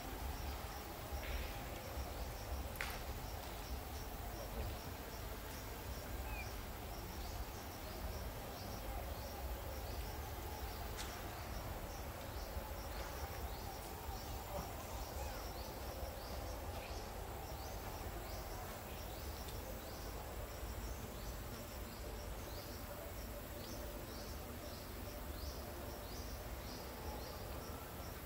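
Outdoor ambience: an insect chirping in short high pulses, about two a second, over a steady low rumble, with a couple of faint clicks.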